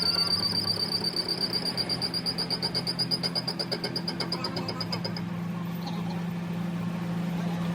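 A workshop machine running: a steady low hum with a high whine that pulses about eight times a second and dies away about five seconds in.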